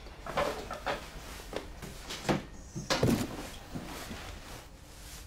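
Cardboard moving boxes being handled and carried about in a small room: a string of light knocks, thuds and scrapes, the loudest thud about three seconds in.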